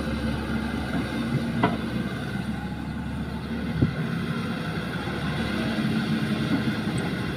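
Caterpillar tracked excavator's diesel engine running steadily as the arm swings back empty from the dump truck, with two short sharp knocks about a second and a half and four seconds in.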